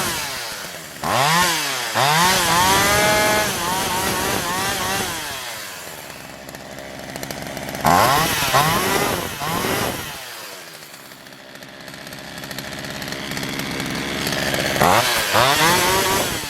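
Poulan Wild Thing 2375 two-stroke chainsaw running, blipped up to high revs in quick bursts at the start, about halfway and again near the end, dropping back toward a steadier idle in between. The freshly started saw runs well on its old carburetor with new fuel lines and primer bulb.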